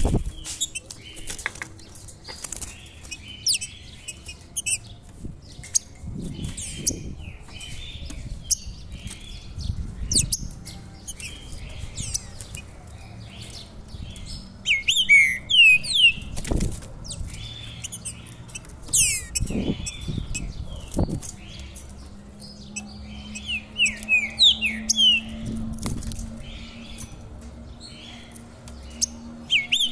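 Caged songbird fluttering and hopping about its wire cage, with soft thumps from its wings and from landing on the perches. Bursts of sharp chirps and short song phrases come about halfway through, again a few seconds later, and near the end.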